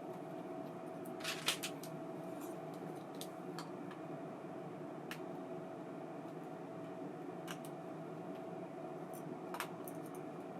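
A few light, sharp clicks and taps of small metal reel parts being handled: a short cluster about a second and a half in and another near the end, over a steady low hum with one held tone.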